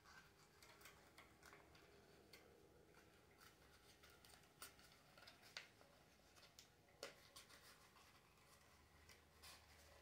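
Faint rustling and crackling of a cut-out paper piece being folded and pleated by hand, with scattered small clicks, a few sharper ones in the second half.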